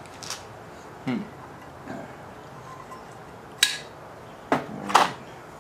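Light metallic clinks of small engine parts, valves and a hand tool, being handled over a Briggs & Stratton engine block: a few scattered clicks, the sharpest about three and a half seconds in and two more close together near the end.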